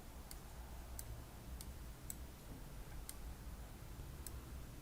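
Faint computer mouse clicks, about six, spaced irregularly, over quiet room tone.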